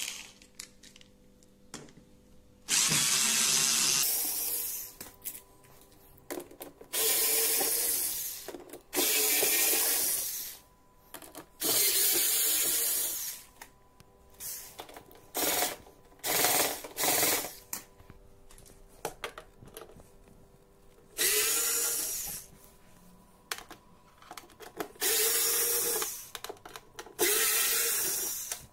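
Cordless electric screwdriver backing screws out, in about ten short runs of a second or so each, the motor's whine rising as each run starts.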